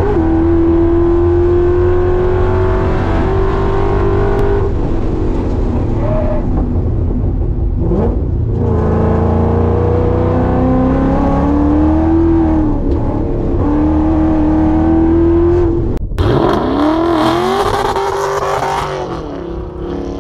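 A supercharged S197 Ford Mustang's V8, heard from inside the cabin, running hard on track. Its pitch climbs steadily and drops a couple of times at gear shifts. About four seconds before the end it cuts to whooshing sound effects with sweeping pitch.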